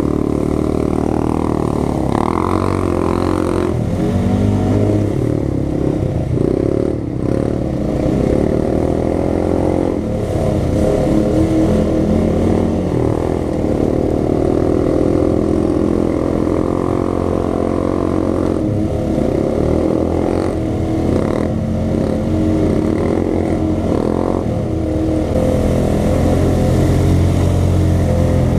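Single-cylinder engine of a 2015 Honda Rancher 420 ATV running under load on a muddy trail, heard up close from the machine, the revs rising and falling as it rides.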